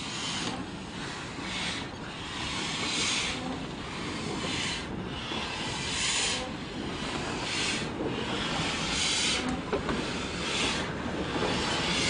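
LNER A4 Pacific steam locomotive 'Bittern' moving slowly, its three-cylinder engine giving off rhythmic puffs of hissing steam about once a second over a low rumble.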